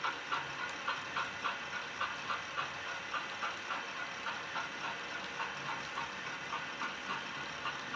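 Model railway layout running: the motor and wheels of a model locomotive and coal wagons on Peco bullhead track, together with the Magnorail chain drive beneath the layout, give a steady mechanical whirr with a regular clicking about three times a second. The chain noise is loud because the layout has no skirt to absorb it.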